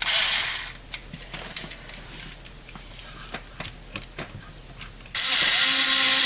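A short burst of noise, then light clicks and taps of parts being handled, then a power drill's motor starting about five seconds in and running steadily at full speed.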